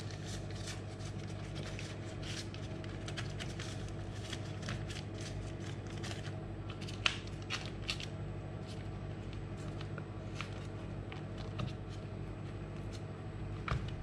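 Baking paper crinkling and rustling under hands that fold and pinch puff-pastry edges together to seal a galette. It comes as a scatter of small crackles and clicks, one sharper snap about seven seconds in, over a steady low hum.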